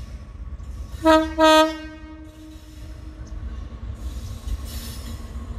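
Horn of a WAG-9HC electric locomotive sounding two short blasts about a second in, the second a little longer, over the low rumble of the approaching train.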